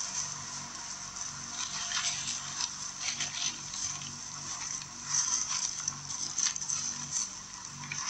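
Dry leaf litter crackling and crunching in short, irregular bursts as monkeys move over it, over a faint repeating low beat of background music.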